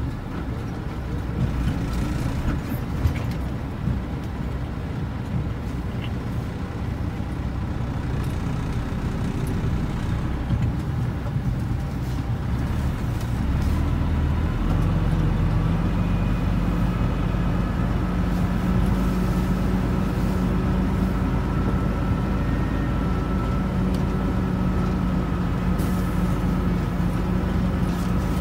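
Semi-truck diesel engine running, heard from inside the cab as the rig rolls along. About halfway through, the engine note rises to a louder, steadier pitch and holds there as the truck pulls.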